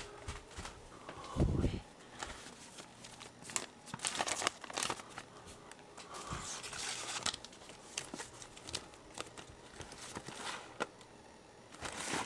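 Papers rustling and shuffling as a hand rummages through stacks of old newsprint pamphlets and notebooks on shelves. There are irregular rustles and small knocks throughout, and a dull thump about a second and a half in.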